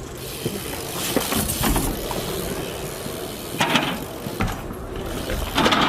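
BMX bike being ridden, with mechanical clicking and rattling from the bike and two louder scraping bursts, one about three and a half seconds in and one near the end.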